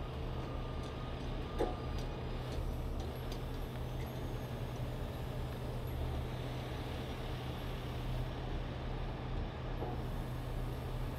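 Heavy diesel truck engines running steadily with a low hum while a winch draws a box truck slowly out of deep mud. A few faint clicks in the first few seconds.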